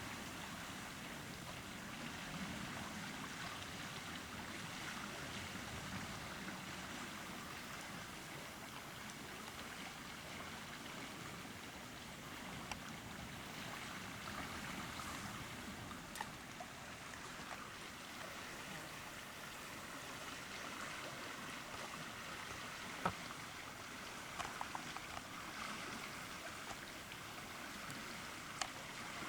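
Steady trickling and lapping of water around a kayak, with one sharp knock about two-thirds of the way through and a few lighter clicks soon after.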